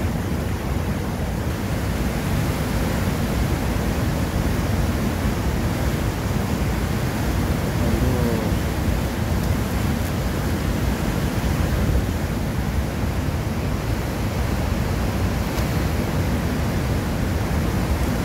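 Steady rushing of a fast mountain stream, an even, loud noise with no let-up that covers all other sounds.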